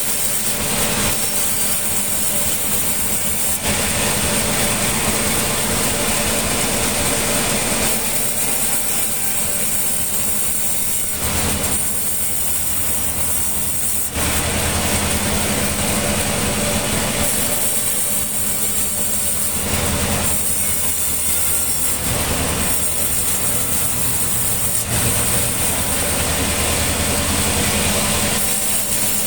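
Sawmill machinery running steadily while mahogany logs are sawn: a constant engine hum under a loud rasping saw noise whose texture shifts every few seconds.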